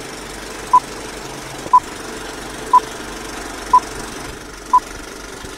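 Five short, high electronic beeps, evenly spaced one second apart like a countdown or time signal, over a steady noisy drone in the channel's intro.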